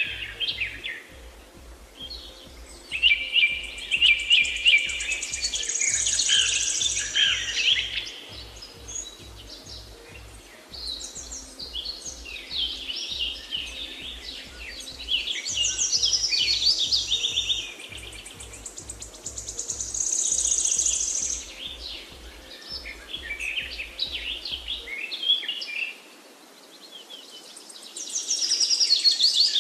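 Many songbirds chirping and singing at once, quick trills and twitters coming and going in waves. A faint low pulsing runs beneath and stops about five seconds before the end.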